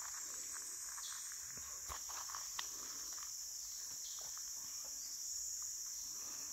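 Steady high-pitched chorus of insects droning in the background, with scattered light clicks and taps.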